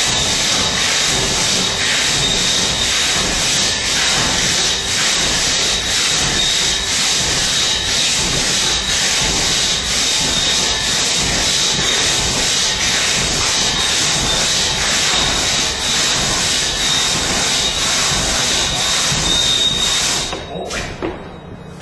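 A single-buck crosscut saw, worked by one man, rasping continuously through a log. It stops about twenty seconds in.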